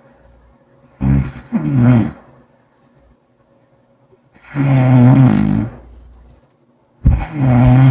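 A person snoring loudly with a low, buzzing snore, three times: the first, about a second in, comes in two parts; the second starts around the middle; the third starts near the end.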